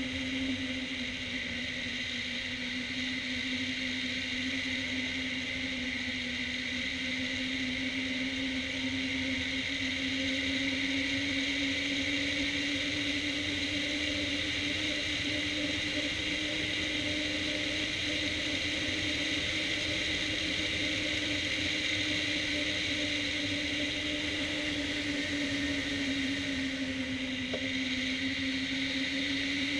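Steady rush of air past a camera on a hang glider's wing in flight, with a humming tone that drifts slowly up and down in pitch.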